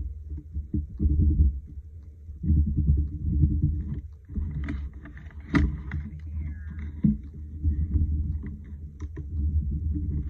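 Uneven low rumbling and rubbing as hands slide a collage postcard and paper across the craft table, with a few light taps, one sharper about halfway through.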